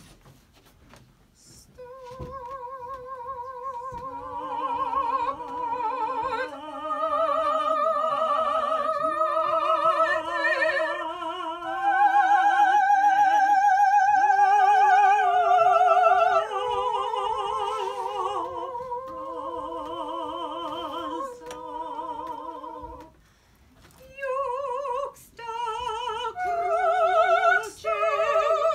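Two high voices singing a slow classical duet in operatic style, with wide vibrato on long, overlapping held notes. The singing breaks off briefly about three-quarters of the way through, then resumes with shorter notes.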